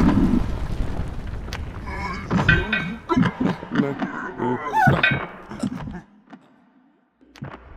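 Cartoon crash-landing aftermath: the rumble of the impact dies away over the first second, then small pieces of rock rattle and click down among the rubble along with short vocal grunts and groans from the dazed characters. It falls almost silent about six seconds in, with a couple of small clicks near the end.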